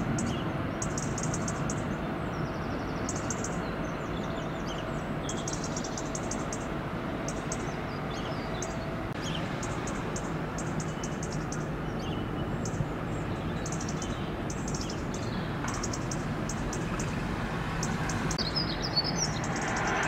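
Outdoor riverside ambience: a steady low background rumble and hum, with small birds chirping in quick trains of high, thin notes. A few short falling calls come near the end.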